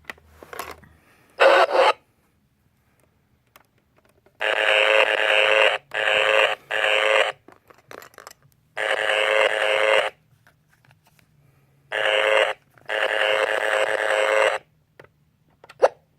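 Plastic toy engine's electronic sound chip playing engine sound effects through its small built-in speaker, in a series of short bursts of a second or so each, with a few clicks near the end.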